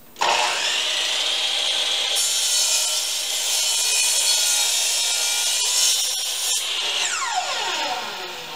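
Sliding miter saw starting up, its blade cutting across the end of a wooden board to square it, then switched off about seven seconds in and winding down with a falling whine.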